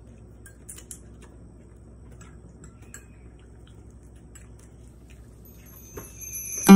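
Faint, scattered light clicks of chopsticks and eating at a table, a few ticks a second apart. Loud background music comes in right at the end.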